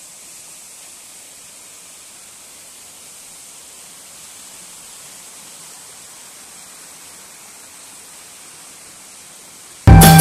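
Steady, even rush of a waterfall and its stream, a hiss with no pattern in it. Just before the end, loud folk music with drums cuts in suddenly.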